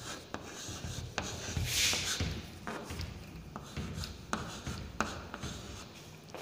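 Chalk writing on a chalkboard: a string of short taps and scratchy strokes, with a longer, brighter scratch about two seconds in.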